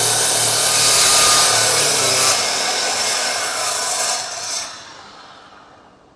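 Worx cordless miter saw running with its blade lowered slowly through a piece of wood. About four and a half seconds in, the trigger is let go and the motor winds down and fades out.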